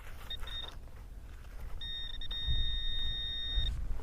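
Metal detector sounding over a coin with a high, steady electronic tone: two short beeps, then one long held tone of about two seconds.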